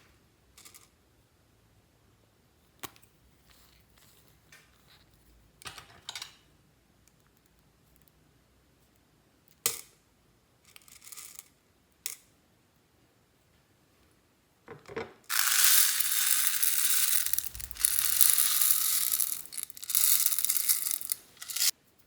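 Scattered small clicks and rustles of materials being handled, then about six seconds of loud crinkling, crushing noise with a couple of short breaks, ending suddenly near the end.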